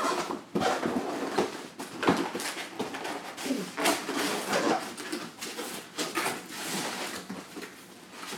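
Cardboard box being opened by hand: flaps pulled back and cardboard rustling, scraping and rubbing against the inner box, with irregular knocks and bumps.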